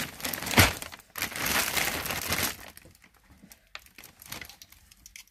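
Plastic FedEx shipping bag crinkling and rustling as it is handled and opened, with a sharp crackle about half a second in and louder rustling for the first two and a half seconds, then softer scattered rustles.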